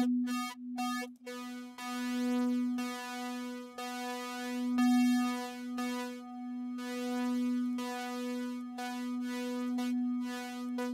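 Arturia Pigments software synthesizer holding a single note on its wavetable oscillator. Its tone shifts continuously as a modulator sweeps the wavetable position. For about the first second the note is chopped into short repeated pulses; then it sounds steadily, its brightness rising and falling.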